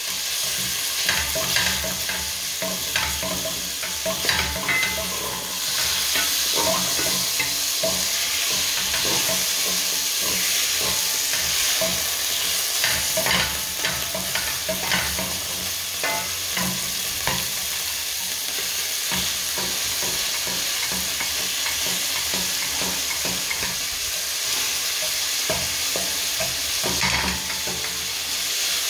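Minced meat sizzling in hot oil in a nonstick pot, with a wooden spatula scraping and knocking against the pot as it stirs and breaks up the meat. The sizzle gets louder about five seconds in.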